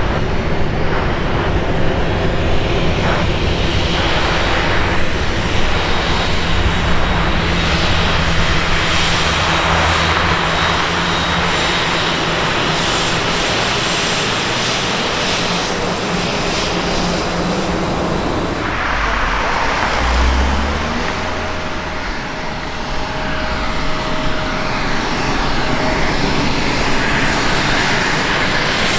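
Airliner engines running loud and continuous, a dense noise with a few steady tones in it, easing slightly about two-thirds of the way through before building again.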